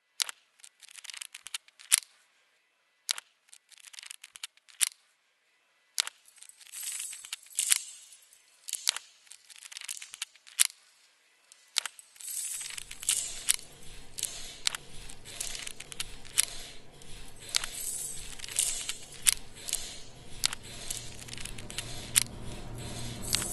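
Sound-art collage of sharp clicks, taps and crackles from everyday objects, sparse with silent gaps at first, then denser and busier; a low steady hum joins about halfway through.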